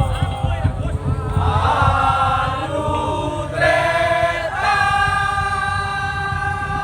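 Madurese tong-tong (daul) ensemble music: fast, dense drum and percussion pounding, with a melody line over it that settles into a long held note about two-thirds of the way through.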